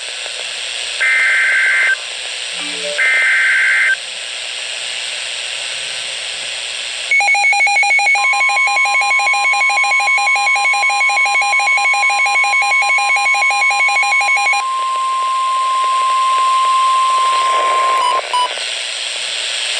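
NOAA Weather Radio emergency alert: two one-second bursts of the SAME digital header, warbling data chirps about two seconds apart, over steady radio hiss. After a few seconds of hiss a rapid pulsing beep starts, and about a second later the steady 1050 Hz warning alarm tone, held for about ten seconds; the pulsing stops about halfway through it. Together they signal that a warning message is about to be read.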